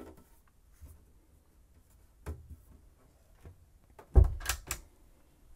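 A wooden closet door with a small metal latch is shut with a sharp thump and latching clicks about four seconds in, after a lighter knock a little over two seconds in. Otherwise quiet.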